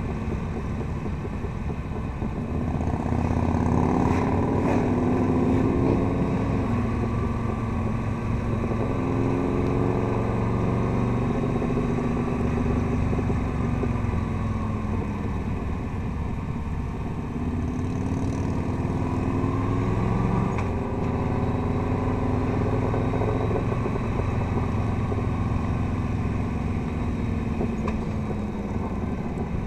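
Touring motorcycle engine heard from the rider's seat, its pitch climbing and falling in long swells as the bike speeds up and eases off through the curves.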